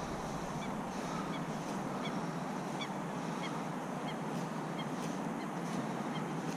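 Geese honking faintly and now and then, short scattered calls over a steady background rush of outdoor air.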